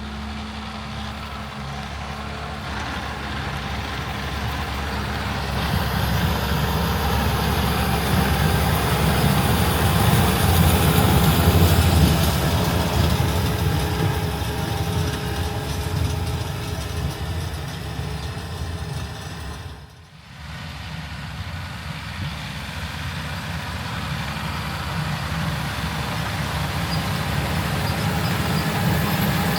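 Heavy diesel farm machinery running steadily, with a deep engine drone that builds over the first dozen seconds and then eases off. About twenty seconds in it drops out briefly, then resumes.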